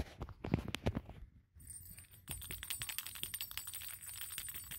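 Kittens' small play toys rattling and jingling as they are batted about: a rapid run of light clicks and chinks, with a thin high ringing joining in about a second and a half in.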